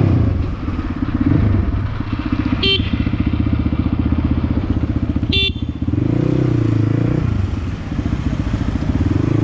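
Crossfire XZ250RR dirt bike's 250 cc single-cylinder engine running under way, heard on board, its pitch rising and falling as the throttle is opened and eased, with clear pickups in the second half. Two short horn beeps cut through, about three seconds in and again about five and a half seconds in.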